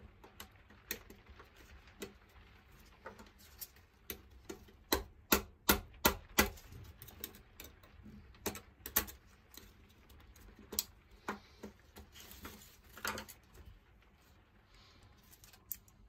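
Small metal clicks and taps from an old padlock's parts being handled and fitted together, irregular, with a quick run of louder clicks about five to six and a half seconds in.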